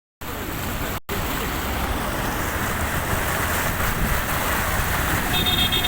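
Heavy rain pouring down, a steady loud hiss with a low rumble underneath, cutting out for a split second about a second in. A brief high steady tone sounds near the end.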